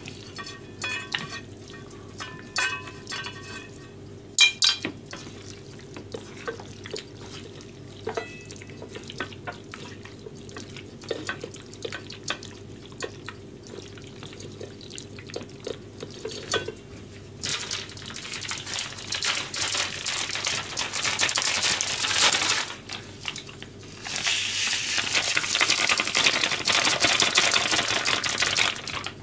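Chicken pieces being worked through beaten egg in a stainless steel bowl with chopsticks and fingers: light clicks and wet squelching over a steady low hum. In the second half come two stretches of steady rushing hiss, about five seconds each, louder than the mixing.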